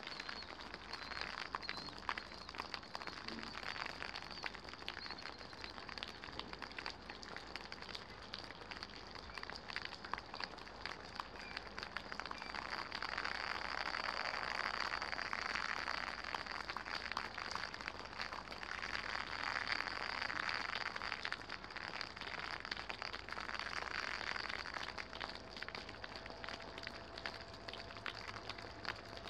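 Rain falling steadily, a dense patter of drops, with a rushing noise that swells twice in the middle and then eases.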